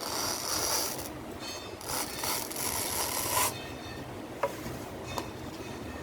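A tool scraping and rasping against a truck tire's rubber in two strokes of about a second each, followed by a couple of sharp clicks.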